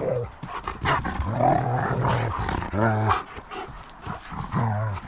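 Dogs growling and whining: several low growls, each lasting under a second, with wavering whines that rise and fall between them.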